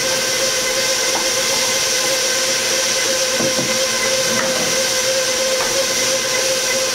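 Bowl-lift stand mixer running on low speed (setting 2) as it mixes flour and yeast mixture into pizza dough: a steady motor whir with an even whine.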